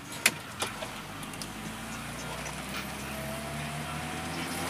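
Volkswagen Voyage's AP four-cylinder engine, heard from inside the cabin, pulling away with its note rising steadily as it revs. A sharp click comes about a quarter second in.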